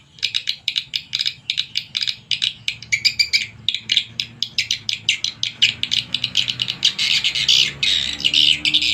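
Swiftlet lure-call recording played through square horn tweeters on a swiftlet-house sound amplifier: rapid high chirps and twitters, several a second, growing denser and more continuous near the end.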